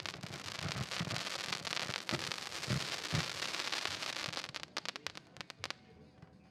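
Weco Samurai 225-shot firework battery firing: deep launch thuds in quick succession under dense crackling. It dies away about five and a half seconds in.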